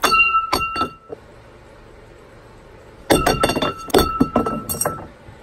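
A plate thrown down onto wooden deck boards, hitting and clattering with a bright ringing clink right at the start, then again about three seconds in with a longer run of rattling impacts.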